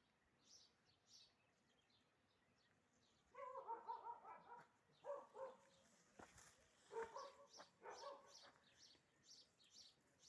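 Faint dog barking in several short runs, with small birds chirping over and over.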